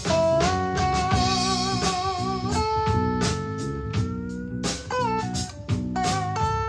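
Music played back through a portable Bluetooth speaker for a sound test: a bluesy guitar melody with bent, wavering notes over drums and bass.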